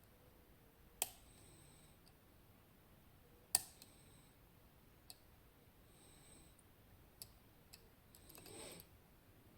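Lock pick working the pins of a West 955 high-pin-count pin-tumbler lock under clockwise tension: a few sharp, scattered metallic clicks, the loudest about three and a half seconds in, and a short scraping rasp near the end.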